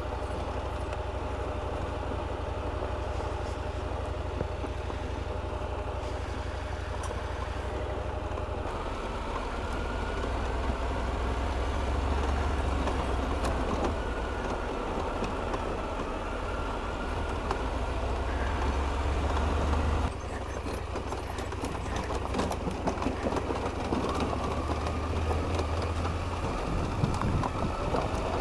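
KTM 890 Adventure R's parallel-twin engine running as the bike rides a gravel mountain road, with tyre and stone noise. The engine note rises around ten seconds in, and the level drops suddenly about twenty seconds in.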